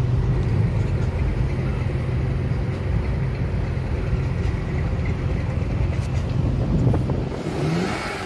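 Car engines running at low speed as cars roll past in a line, a steady low hum. Near the end one engine rises in pitch as a car accelerates.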